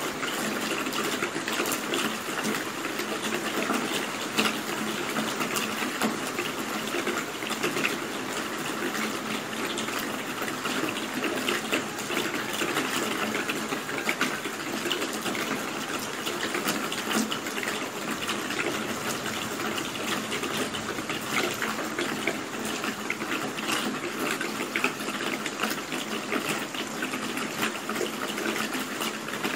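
Steady rain: an even hiss with many separate drops ticking through it.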